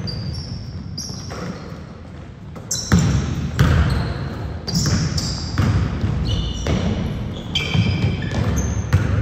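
A basketball being dribbled on a gym court, bouncing about once every half-second to second, with the bounces coming quicker from about three seconds in. Short high sneaker squeaks sound on the floor between the bounces.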